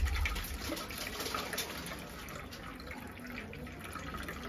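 Cold water pouring steadily in a thin stream from a steel tumbler onto fresh paneer curds in a cloth-lined strainer, rinsing out the lemon-juice sourness.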